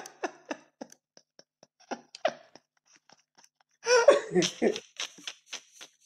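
A person's voice in short, clipped pulses that fade away over the first second, then come back in a brief cluster about four seconds in.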